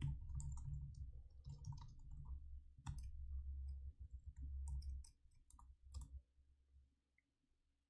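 Typing on a computer keyboard: irregular key clicks with a low rumble beneath them, stopping about six seconds in.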